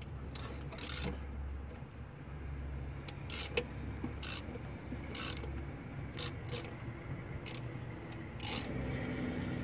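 Hand ratchet clicking in short runs as it is worked back and forth on a rusted, tight EGR valve mounting bolt, easing it loose without snapping it. The clicking comes in about ten brief spurts over a steady low hum.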